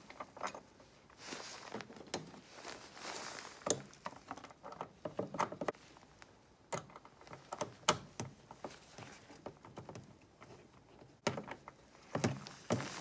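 Irregular clicks, taps and metal clinks of hand tools and handling as a car battery's hold-down clamp is set in place and bolted down with a 13 mm socket wrench, with a few sharper knocks.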